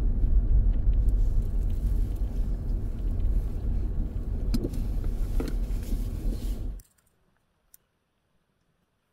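Car cabin noise while driving on a snow-covered road: a steady low rumble of engine and tyres, with a couple of faint ticks. It cuts off suddenly about seven seconds in, leaving near silence.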